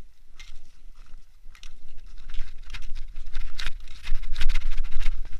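Footsteps crunching on a packed-snow forest path, getting louder and quicker through the second half as the pace picks up to a run, over a low rumble on the microphone.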